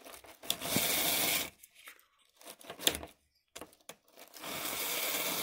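OO-scale model locomotive's small motor whirring as its driving wheels spin against the wire brushes of a Gaugemaster GM60 wheel-cleaning unit, with a scrubbing hiss. It runs in stop-start spells, a short one about half a second in and a steadier one from about four seconds in, as the unit keeps jamming up.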